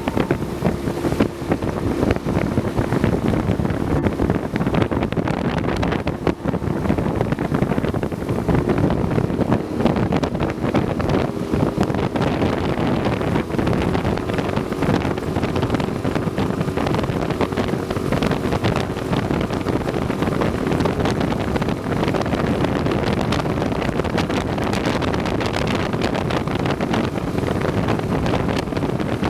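A small boat's motor drones steadily as the boat moves along, with wind rushing over the microphone.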